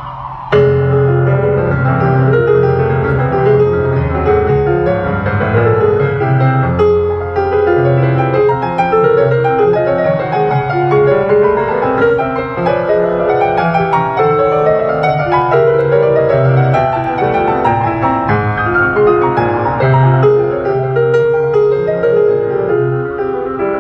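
Piano being played, entering loudly about half a second in: a flowing piece of running scales and arpeggios over sustained low bass notes.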